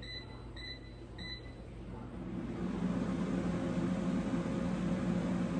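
Air fryer control panel beeping three times, about half a second apart, as it is set. About two seconds in, the air fryer's fan starts up and runs steadily, louder than the beeps, as cooking begins.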